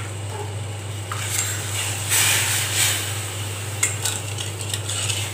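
A steel ladle stirring sugar syrup in a stainless steel pan, scraping and clinking against the metal now and then, with a stretch of denser scraping about two seconds in. A steady low hum runs underneath.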